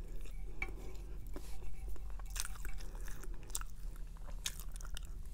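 Close-miked chewing of fettuccine Alfredo, with many short wet smacks and clicks of the lips and mouth, over a steady low hum.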